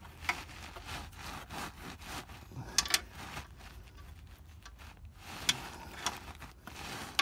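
Handling noise from a hand and a steel wrench working under a golf car's oil pan: rubbing and scraping, with a few short metallic clicks.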